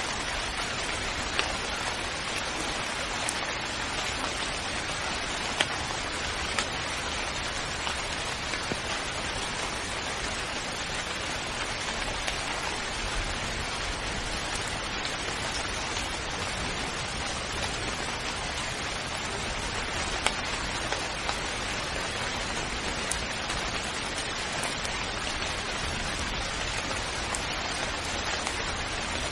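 Steady rain falling, a dense even hiss with scattered louder drop hits.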